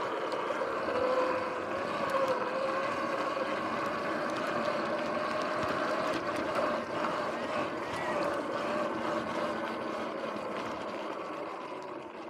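Sur-Ron X electric dirt bike's motor and drive whining steadily while riding, its pitch wandering a little with speed, over a rushing noise of wind and tyres on the dirt trail.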